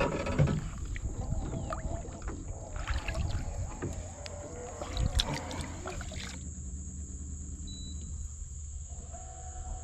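A trout is let go over the side of a small boat, with a small splash and handling knocks at the start. A steady high buzz of insects runs underneath.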